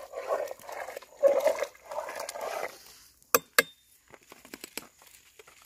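A dog barking roughly three times in the first three seconds, then two sharp metal clicks a quarter-second apart about 3.4 s in as a spoon is knocked and set down, followed by faint crackles from the wood fire.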